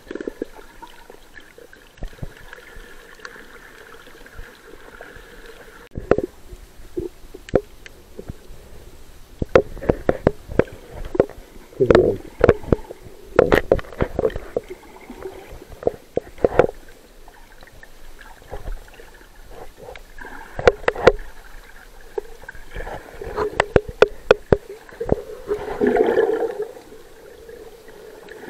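Water gurgling and bubbling as heard by a submerged microphone, with sharp clicks scattered throughout and louder swells of bubbling around the middle and again near the end.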